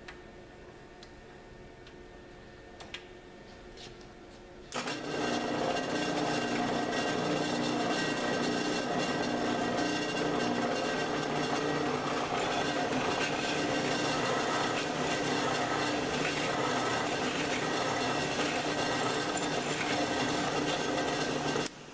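Drill press running, with a twist drill biting into a metal bar clamped in a vise about five seconds in, then a steady, loud drilling noise that stops abruptly near the end.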